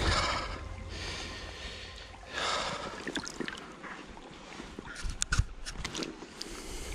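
Shallow river water sloshing and splashing around a large common carp held in the hands as it is released, in a few swells, with small sharp ticks of water near the end.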